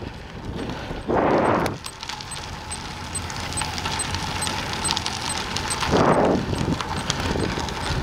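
Bicycle tyres rolling over a gravel trail, a steady crunching noise scattered with small crackles of stones. Two louder rushes of noise come about a second in and near six seconds.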